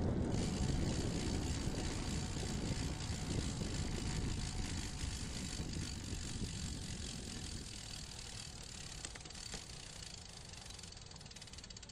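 Bicycle rolling at about 15 mph: wind rumbling on the bike-mounted camera's microphone over the hum of tyres on asphalt, growing gradually quieter toward the end. A couple of light clicks about nine seconds in.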